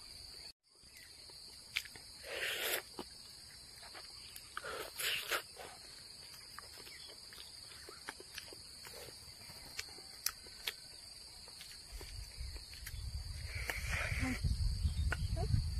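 Steady high-pitched drone of insects, one unbroken tone. A few short close noises come about two and five seconds in, and a low rumble builds near the end.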